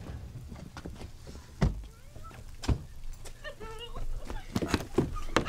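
Car doors knocking and thumping several times, most of it near the end, with a couple of short voice sounds over a low rumble.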